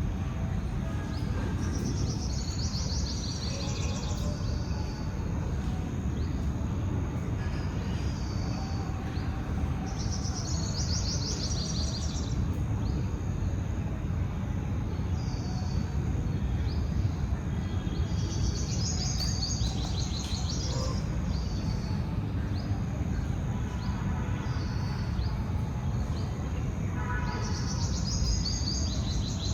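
Birds chirping over a steady low rushing noise. A high, fluttering phrase comes back about every eight to nine seconds, with shorter chirps in between.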